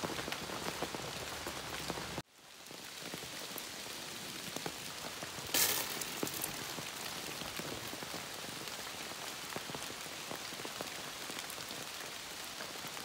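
Steady rain falling on a canvas tarp overhead and the woods around it, with many separate drop ticks. The sound cuts out suddenly about two seconds in and fades back up, and there is a brief louder rush about five and a half seconds in.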